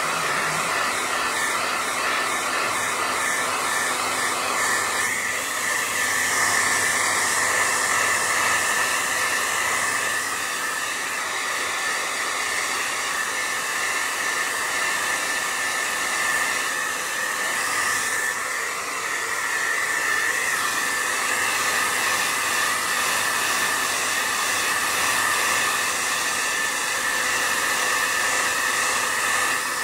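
Dog blow dryer running steadily, air rushing with a constant high whine, as it dries a wet dog's coat after a bath.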